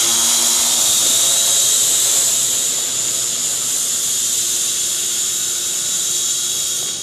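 Huajun W606-3 quadcopter in flight, its brushed motors and propellers giving a steady high-pitched whine that eases slightly about two and a half seconds in.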